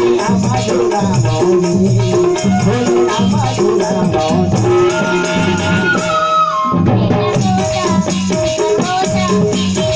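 Live devotional bhajan music: a harmonium melody over a hand-drum rhythm and jingling percussion. A held melody note slides down and the drums stop briefly about six and a half seconds in, then the band comes back in.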